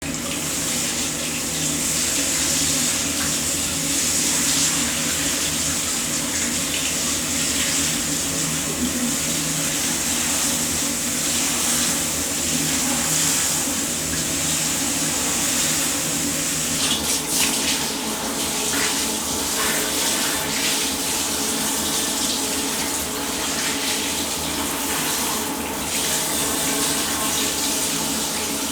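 Hot water running steadily from a tap, flushing dust out of an electrostatic furnace filter.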